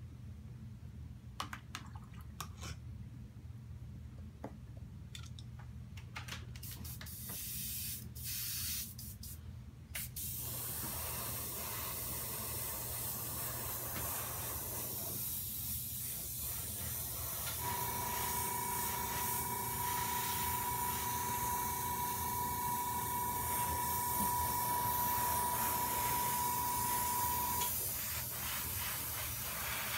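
Airbrush spraying paint: a few light clicks, then a steady hiss of air starts about a third of the way in and runs on. For about ten seconds in the latter half, a steady high tone sounds along with the hiss.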